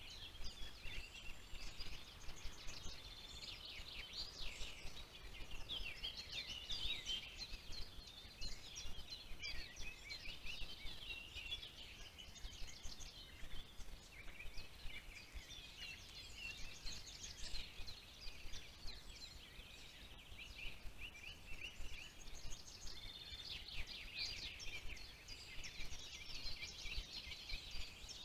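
Several songbirds singing at once: a continuous tangle of overlapping chirps and trills, with a low steady rumble underneath.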